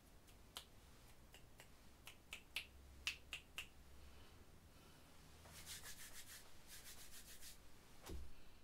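Faint handling sounds of earbuds being pushed and adjusted in the ear: a dozen or so light clicks over the first few seconds, then two quick runs of fine scratchy ticking, and a soft thump near the end.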